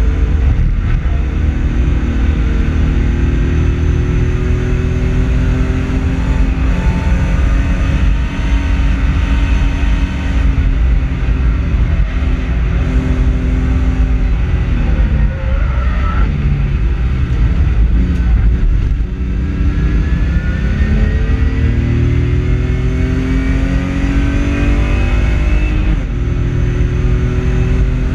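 BMW E30 race car's engine heard from on board at racing speed, climbing in pitch in steps as it pulls through the gears. Around the middle the note drops away steeply as it slows, then rises steadily again for the rest of the stretch.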